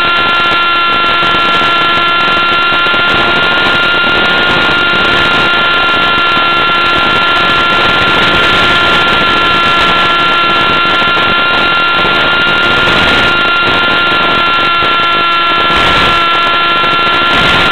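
Electric motor and propeller of an RC powered glider in flight, heard through the plane's onboard microphone: a loud, steady whine at constant throttle.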